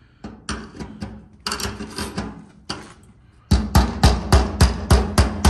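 Hammer tapping a screwdriver against the metal lock ring of a fuel tank sending unit to drive the ring around and seat it over a thick gasket. A few light taps come first, then a quick run of harder strikes about four a second.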